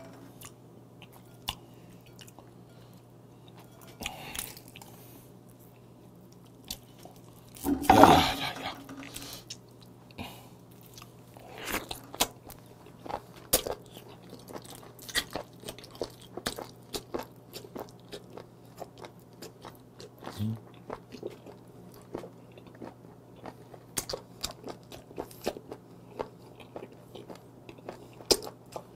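A mouth chewing a whole live small octopus, close to a clip-on mic, making short wet clicking smacks about every half second to second. About eight seconds in, one louder burst comes as the octopus is drawn into the mouth.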